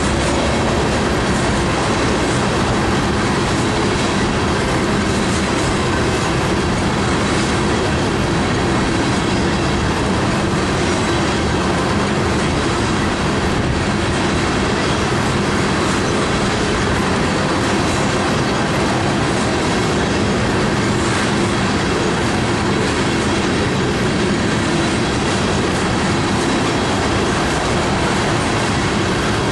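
Steel wheels of a unit coal train's open-top coal cars rolling past at speed on the rails. A loud, steady rumble and rattle with no let-up.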